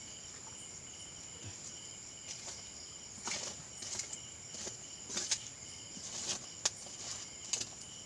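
Night insects, crickets among them, chirping steadily: one high continuous trill and a pulsing chirp lower down. From about three seconds in, scattered clicks and rustles of something being handled.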